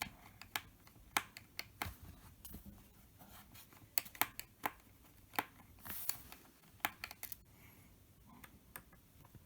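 Small screwdriver working a bottom-panel screw out of a Dell Latitude E7470 laptop. It makes a string of light, irregular clicks and ticks, a few a second.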